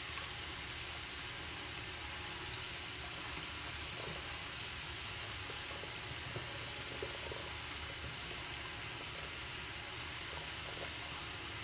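Bathroom tap running steadily into a sink, with faint rubbing of a washcloth on skin.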